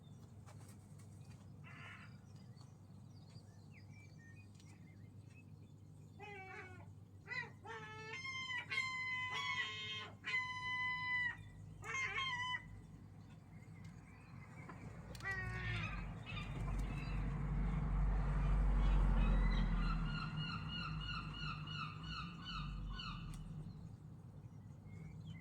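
Seagulls calling: a run of loud, strange calls about a quarter of the way in, then a quick pulsed call later on. Between them a low rumble rises and fades.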